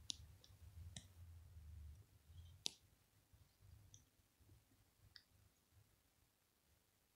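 Near silence broken by a few faint, sharp clicks, three of them clearer in the first three seconds. A low rumble of handling runs under the first half and then fades.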